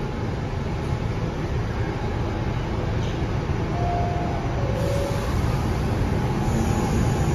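New York City subway car standing in a station, a steady low rumble growing slightly louder near the end. Two faint short tones sound about four and five seconds in, the second lower than the first.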